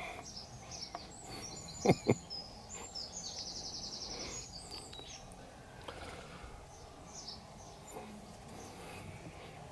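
Birds chirping, with a quick high trill in the first half, over quiet outdoor background; two loud sharp knocks come close together about two seconds in.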